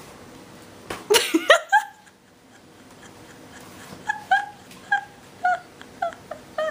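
Siberian husky whining: a loud burst of whines about a second in, then a run of short high whimpers about two a second near the end.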